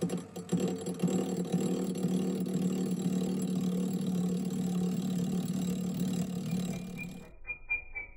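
Metal lathe running with a steady hum while its tool skims the blade tips of a Hastelloy X nickel-alloy turbine wheel. This is an interrupted cut, a rapid ticking as each blade passes the tool. About seven seconds in it cuts off, and a quieter, regular ticking takes over.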